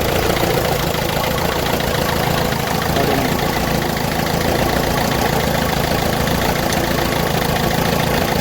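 Ford Figo diesel engine idling with the number 3 injector's connector unplugged, running on three cylinders with a miss. The miss shows that the refitted injector is now working.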